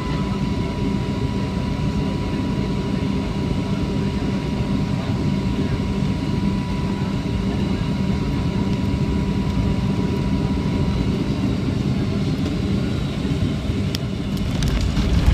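Cabin noise of a Boeing 757-300 on short final: a steady rush of engine and airflow noise with a faint engine whine that drops slightly and fades. A few sharp knocks and a louder thump come near the end, as the main wheels meet the runway.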